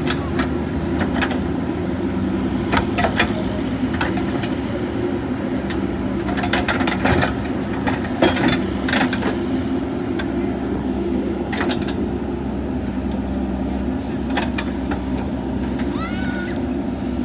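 Diesel engine of a JCB 3DX backhoe loader running steadily under work, with short sharp knocks scattered through, several of them close together around the middle.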